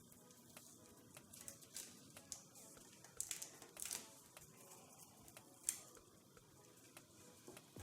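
Faint, scattered scrapes, ticks and crinkles of vinyl decal sheet and tape being handled and pressed down. A few sharper scrapes come about three to four seconds in and again near six seconds.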